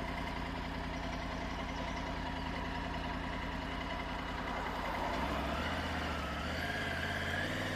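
A vehicle engine running steadily; its note shifts about five seconds in and rises slightly near the end.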